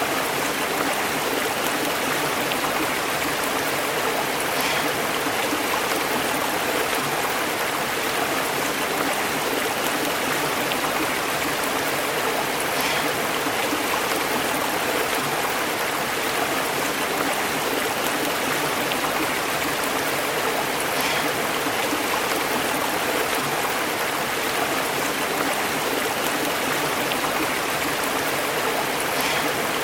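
Stream burbling steadily over rocks.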